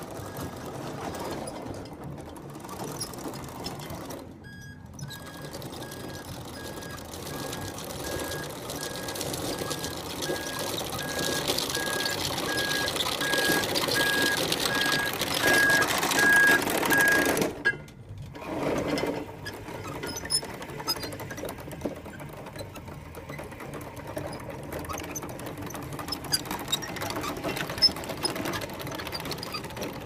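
Homemade mini bulldozer on its tracks over gravel: a steady whirring drive with crunching and clatter from the tracks, growing louder as it comes close. Through the middle runs a steady series of evenly spaced beeps at one pitch.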